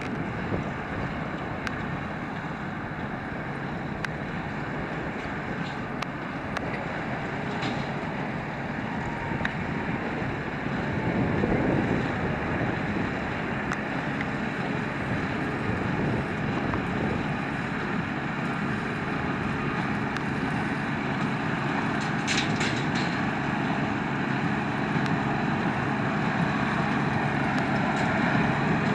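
A farm tractor running steadily while working hay machinery, growing louder about eleven seconds in.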